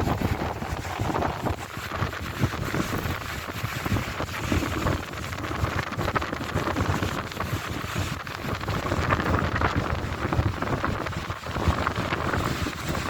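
Gusty wind buffeting a phone's microphone: a rough, rumbling rush, strongest low down, that swells and drops with the gusts.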